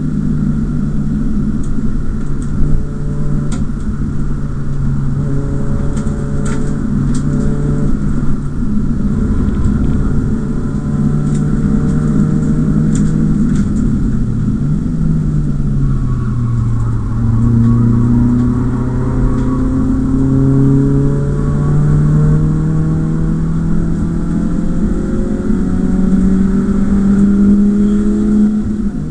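BMW E36 318is four-cylinder engine heard from inside the cabin while lapping a race track. It holds steady revs, drops off about halfway through as the driver lifts, then pulls with slowly rising revs and drops again right at the end.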